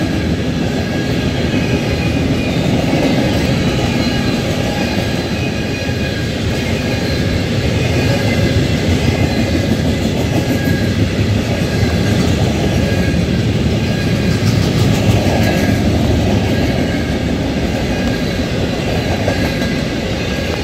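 A freight train's cars rolling steadily past at close range: the continuous rumble and clatter of wheels on rail, with a few faint high steady whining tones over it.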